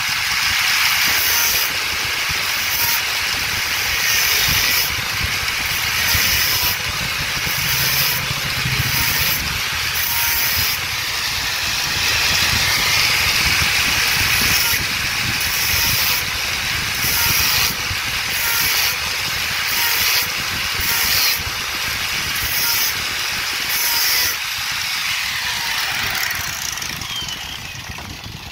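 Electric 5 kg demolition hammer (breaker) running under power with its chisel bit against the floor. The noise swells and dips every second or so, then dies away near the end as the machine is switched off.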